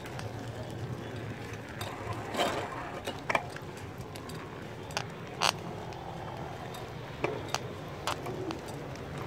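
Bicycle ride heard from a camera held close to the rider's leg: a low steady hum, shorts brushing over the microphone, and scattered knocks and clicks, the loudest about two and a half and five and a half seconds in.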